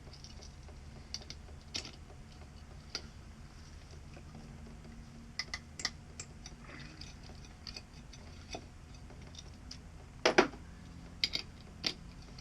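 Scattered light clicks and taps of hand tools working on an outdoor faucet being taken apart, with a few louder metal knocks near the end.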